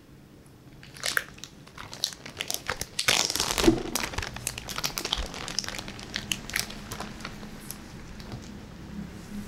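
Plastic zip-top bag crinkling and rustling as it is opened and a marinated steak is drawn out of it. The crackling starts about a second in, is busiest around three to four seconds, then thins out.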